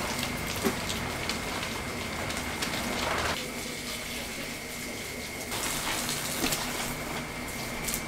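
Water sprinkled over a freshly repotted plant, splashing on the leaves and potting mix with a steady rain-like patter that thins out for a couple of seconds midway.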